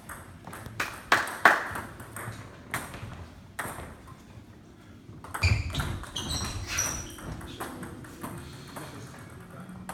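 Table tennis ball clicking sharply as it is bounced and struck with bats on the table, a quick series of clicks in the first few seconds. About halfway through there is a dull thump with some high squeaks.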